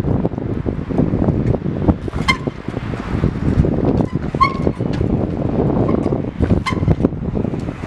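Wind buffeting the microphone as a rumbling, fluttering roar. Three short high squeaks come through it about two, four and a half, and nearly seven seconds in.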